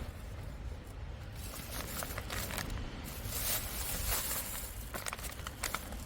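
Wind buffeting the microphone as a steady low rumble, with scattered light crunching and clicking sounds.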